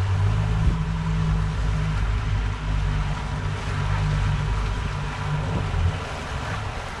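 Twin outboard motors running steadily in gear at trolling speed, about 3 miles an hour: a low drone with water washing behind the boat. The drone eases slightly near the end.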